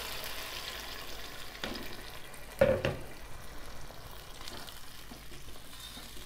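Water poured from a plastic jug into a hot pot of fried chicken masala, the mix sizzling and hissing steadily; a knock about two and a half seconds in, then a plastic spoon stirring the liquid near the end.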